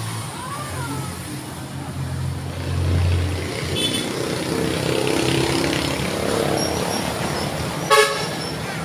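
Street traffic with motorcycles and other vehicles going by: a low engine hum swells and fades as they pass. A brief sharp, loud sound comes near the end.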